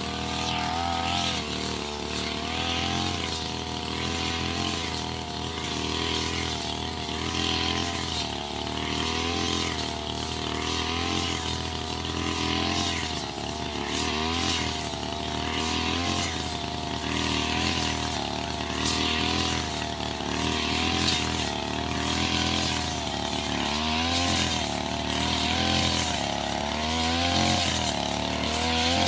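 Backpack brush cutter's small petrol engine running steadily at cutting speed, its pitch wavering slightly as the circular blade cuts through tall grass.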